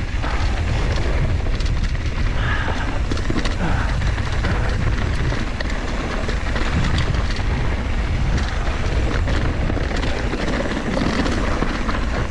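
Wind rushing over an action camera's microphone on a fast mountain-bike descent, a steady heavy rumble. Over it come the tyres on dirt singletrack and the bike's sharp rattles and clicks over rocks and bumps.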